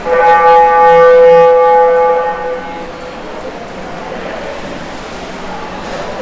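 Game horn sounding one long, steady blast of about two and a half seconds, the kind used to signal a stoppage or the end of a period in water polo.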